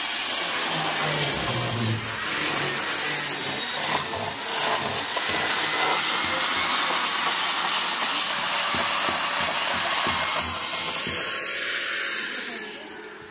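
Steady harsh hissing noise of metalwork on the stainless-steel railing pipes, fading out near the end.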